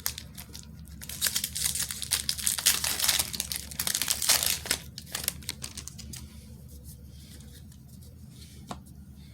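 Foil wrapper of a trading-card booster pack crinkling and tearing as it is opened, a dense crackle for the first few seconds that dies down to faint rustling and a few clicks.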